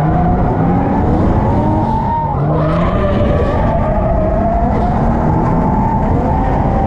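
Two drift cars sliding through a corner in tandem: the engines rev up and down with the throttle over continuous tyre squeal. The camera car is a turbocharged 1JZ-engined Lexus IS300 and the car ahead is a Corvette.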